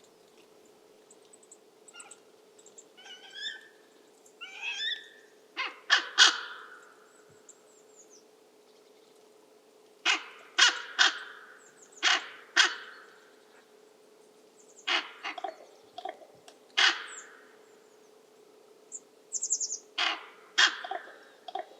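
Northern goshawk calling loudly while defending its food from a buzzard: harsh calls in groups of two or three, with softer calls before them. A faint steady hum runs underneath.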